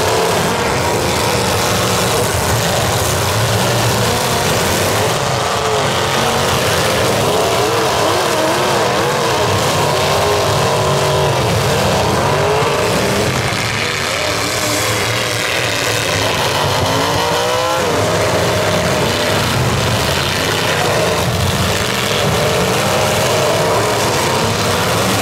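Several demolition derby cars' engines revving and running at once, loud throughout, their pitch rising and falling over and over, with a steep rev climb about eighteen seconds in.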